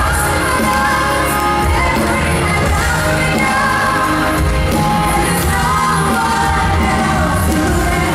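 Live pop concert heard from the audience in an arena: a female lead vocalist singing into a microphone over loud pop music with heavy bass.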